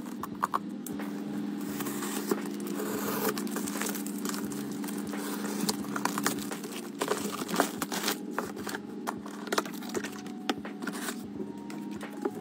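A parcel being unboxed by hand. The packaging crinkles and rustles, a box cutter slices through packing tape, and a cardboard box is opened. Many small sharp crackles and clicks run over a steady low hum.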